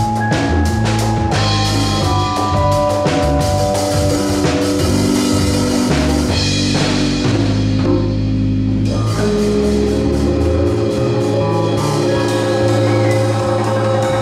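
Live band playing an instrumental passage: keyboard chords and electric bass over drum kit and congas. The drums thin out briefly just past the middle, then come back in.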